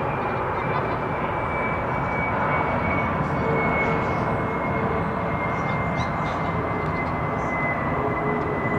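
Airbus A320neo's CFM LEAP-1A turbofan engines passing overhead on approach: a steady jet rush with a high whine that slowly falls in pitch.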